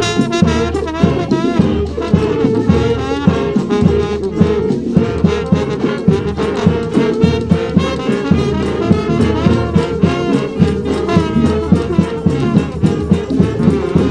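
Large street brass band playing a New Orleans-style brass-band tune: trombones, trumpets and saxophones over a steady drum beat, with bending horn lines.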